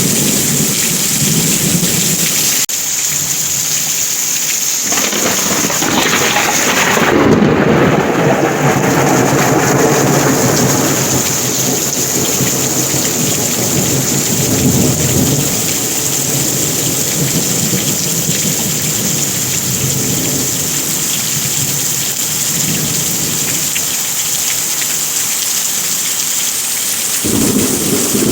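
Heavy rain falling steadily, with a roll of thunder that swells about five seconds in and dies away over the next ten seconds.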